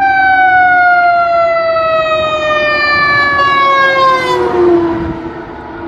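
Fire engine siren sounding one long, loud tone that falls slowly and steadily in pitch, then dies away near the end as it winds down.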